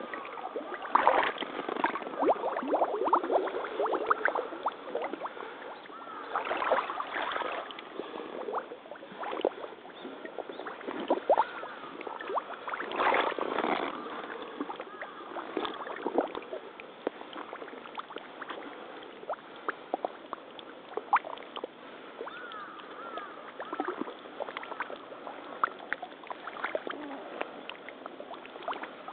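Rubber waders wading through shallow, muddy pond water: irregular sloshing and splashing with each step, heaviest in the first half, with small sucks and drips in between.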